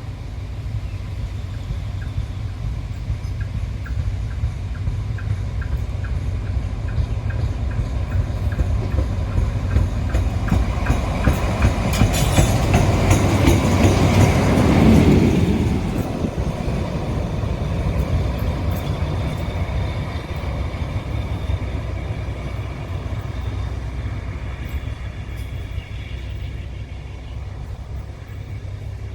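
Diesel locomotive and coaches rolling past at low speed during shunting, wheels clicking regularly over rail joints under a low engine rumble. It grows louder to a peak about halfway through, then fades away.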